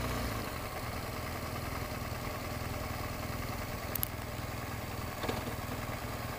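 BMW R1200GS flat-twin engine running steadily at low speed, a low even engine note, with a faint click about four seconds in.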